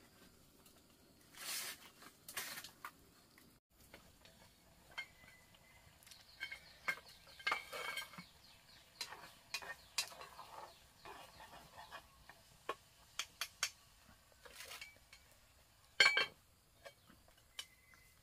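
Irregular light knocks, taps and clinks of objects being handled, with a few short rustling bursts, the loudest about sixteen seconds in.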